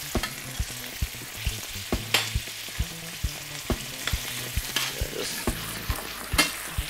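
Chopped onions, peppers, tomatoes and saltfish sizzling in a stainless-steel frying pan, stirred with a metal spoon that clicks and scrapes against the pan at irregular intervals.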